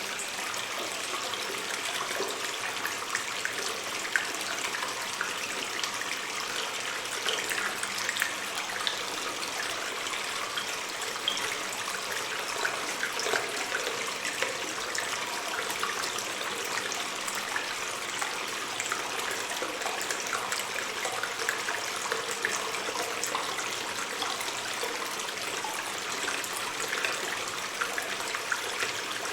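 Water stream in a cave: a steady rush of running water with many small trickles and drips splashing through it.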